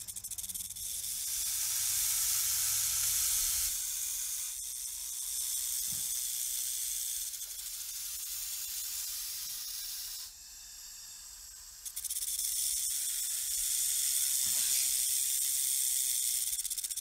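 A snake hissing: long steady hisses, with a break of about a second and a half around ten seconds in.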